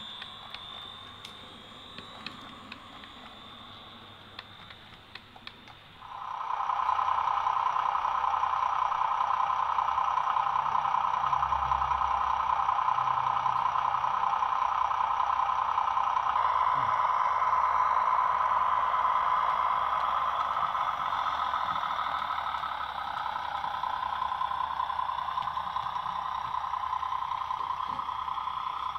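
OO gauge model train running on the layout: a few light clicks, then a loud steady hum that comes in suddenly about six seconds in and holds.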